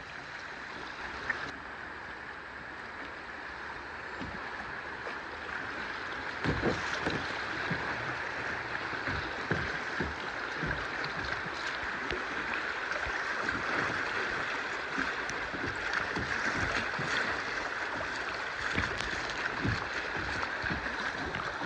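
Shallow class 1 rapids rushing and splashing around a kayak, getting louder over the first several seconds as the boat moves into the riffle, with scattered short low knocks.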